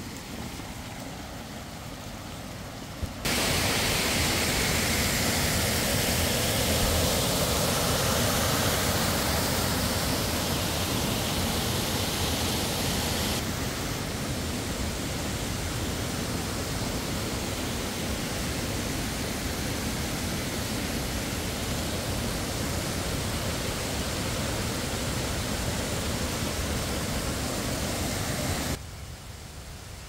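Steady rush of falling water from a waterfall, a loud, even hiss without rhythm. It comes in abruptly about three seconds in after a quieter stretch, loses some of its high hiss about halfway, and cuts off shortly before the end.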